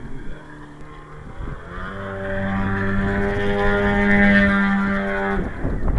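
Remote-control model airplane engine running at a steady pitch. It grows louder over a few seconds, then cuts off abruptly near the end.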